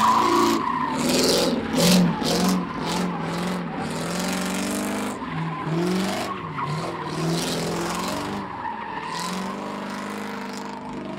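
Ford Crown Victoria's V8 revving up and down over and over while its tires skid and squeal on pavement.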